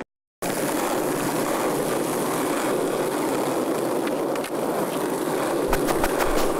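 Skateboard wheels rolling on street asphalt, a steady gritty rumble that cuts in after a brief silence at the start, with a few sharp clacks of the board near the end.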